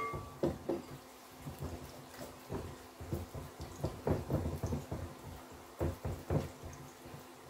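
Thin fish batter being worked in a bowl, whisked and then stirred by hand as fish pieces are dipped: irregular wet sloshing and soft taps, with oil faintly sizzling in the frying pot.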